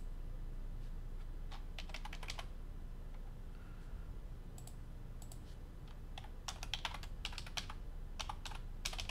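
Computer keyboard typing in short runs: a quick burst of keystrokes about two seconds in, a few scattered taps, then a longer run in the second half as a username and password are typed, over a low steady hum.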